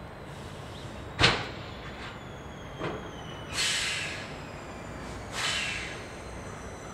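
Rail yard sounds: one sharp metallic bang about a second in, a lighter knock, then two short bursts of hissing air about two seconds apart.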